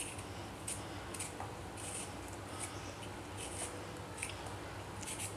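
Vegetable peeler scraping the skin off a raw potato in short, quiet strokes, about one or two a second.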